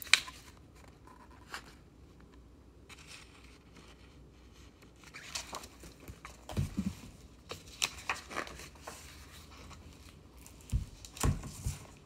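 Picture book being handled: paper rustling and page sounds, with a sharp click at the start and a few soft bumps in the second half.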